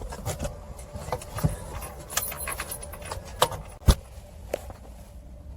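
Small metal parts clinking and knocking as they are handled, a string of sharp clicks with one louder knock about four seconds in.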